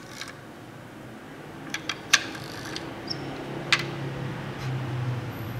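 Plastic toy cement mixer truck handled on a table: a few sharp plastic clicks and knocks, the loudest about two seconds in, then a low hum building in the second half.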